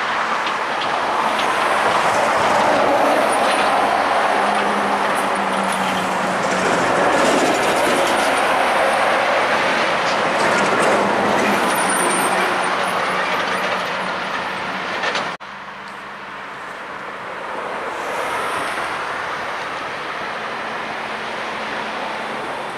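Rushing rumble of a train running on the rails. It drops suddenly about fifteen seconds in, and a quieter rumble carries on after.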